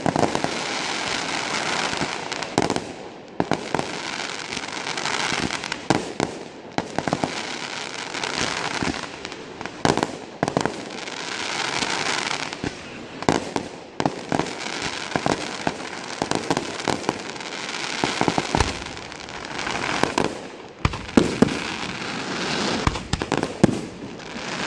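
Fireworks display: a dense run of sharp bangs from launches and bursting aerial shells, over a hissing that swells and fades every couple of seconds as the gold stars and comets burn.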